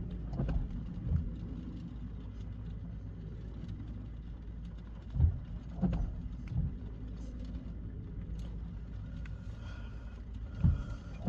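Low steady rumble inside a parked car, broken by a few short, dull thumps. The scanner is silent while it scans, with no transmission coming through.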